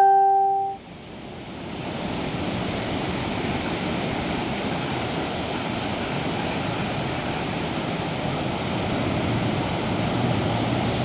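Sea surf on a beach: a steady rushing wash of waves that swells up about a second in. It follows a loud chime-like ringing tone that dies away in the first second.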